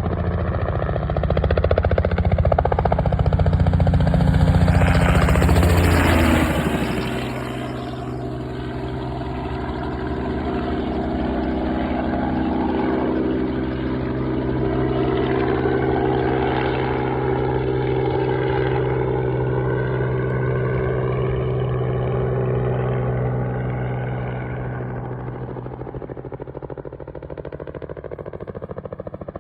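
Robinson R44 helicopter running: a steady engine and rotor sound that shifts lower in pitch about six seconds in, holds steady, then grows gradually quieter near the end.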